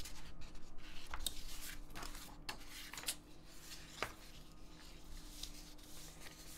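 Quiet room tone with a steady low hum, broken by scattered faint clicks and light rustling, a handful in the first four seconds.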